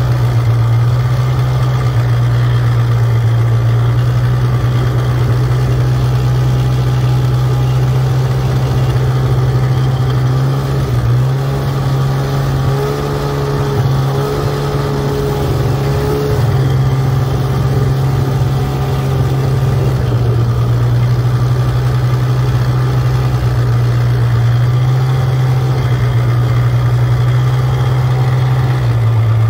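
Snowmobile engine running steadily while towing two snow tubes on rope, its pitch rising a little about eleven seconds in and settling back down around twenty seconds.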